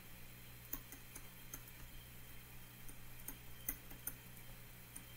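Stylus tapping on a tablet screen while handwriting: faint, irregular clicks, several a second in clusters, over a steady low electrical hum.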